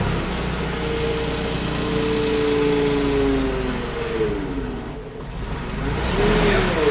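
Forklift engine revving with the hydraulic lift whining as it raises the hanging Cummins N14 engine; the whine holds steady, sags about halfway through and rises again near the end.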